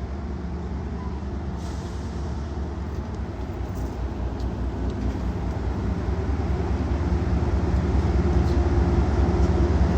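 MBTA HSP-46 diesel locomotive's MTU 16V4000 engine running with a steady low rumble that grows steadily louder.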